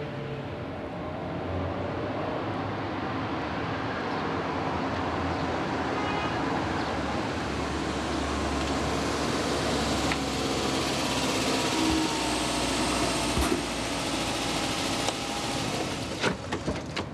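Steady noise of passing road traffic, swelling a little, with a few sharp clicks near the end.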